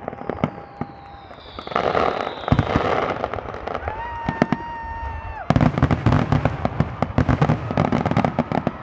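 Fireworks grand finale: a barrage of bangs and crackles. A falling whistle comes near the start and a dense crackling hiss a couple of seconds in, then rapid-fire bangs start again about halfway through.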